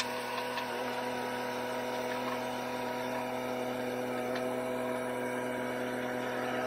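Shanding SD25U mini excavator's Yanmar three-cylinder diesel engine running at a steady speed with its hydraulic pump humming as the boom, arm and bucket are worked. The hum is even throughout, with a few faint ticks.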